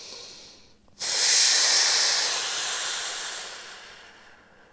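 A woman's quiet breath in, then a long forceful exhale through pursed lips. The exhale starts suddenly about a second in as a loud hiss and fades away over about three seconds. It is the "balloon breath", blowing out against resistance to fire up the core muscles.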